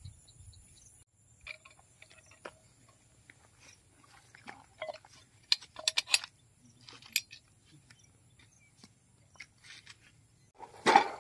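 Scattered small metallic clicks, taps and scrapes of hands working the steel fittings of a porcelain disc insulator string, fitting a pin into its ball-and-socket coupling. A faint steady high whine runs underneath, and a louder brief knock comes near the end.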